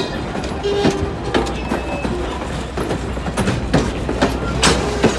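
Passenger coaches of a Strasburg Rail Road steam train rolling past at low speed, their wheels clacking and knocking irregularly over the rail joints above a steady low rumble.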